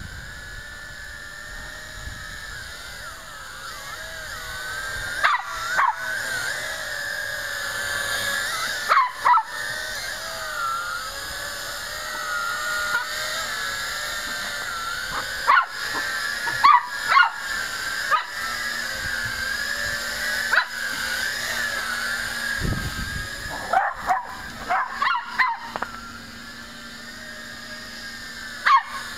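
YiZhan Tarantula X6 hexacopter's motors and propellers whining in flight, several close tones wavering in pitch as the throttle changes, with a few brief breaks.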